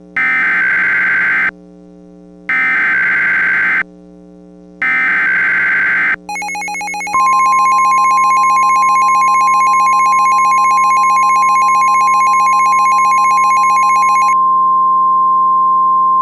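Emergency Alert System SAME header: three short bursts of screeching digital data tones, about a second apart. These are followed by the long, steady NOAA Weather Radio warning alarm tone, with a buzzier many-tone sound layered under it for about the first seven seconds, all over a constant low hum.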